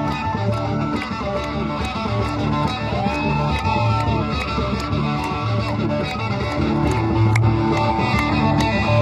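Live amplified band in the Tuareg guitar style: electric guitars playing over a repeating bass line, with a lead line that glides up and back down in pitch.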